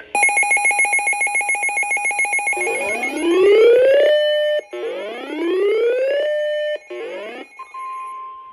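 Electronic emergency-alert tones. A fast-pulsing beep runs for about three seconds, then come two rising siren-like sweeps, and then a single steady tone holds near the end. The tones herald a blizzard warning broadcast.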